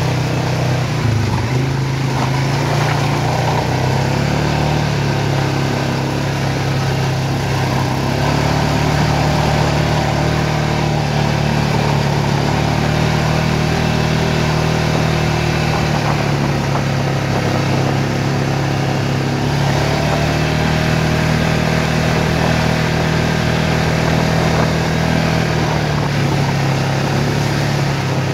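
ATV (quad bike) engine running steadily under way at a fairly constant speed, with a brief drop in pitch about a second in and small throttle changes later.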